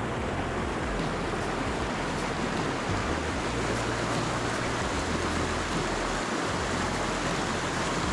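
River water rushing steadily over a small rocky rapid, a continuous even roar of whitewater.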